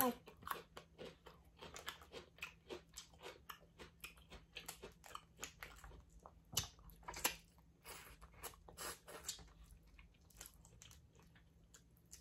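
A person chewing and biting seafood-boil food close to the microphone: a steady run of short wet smacks and crunches, a few each second, one louder bite about six and a half seconds in.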